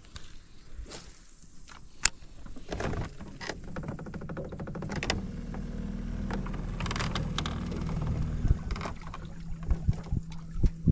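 A boat motor running with a steady low hum that starts about three seconds in, with a sharp click near two seconds and a few small clicks and knocks of handling.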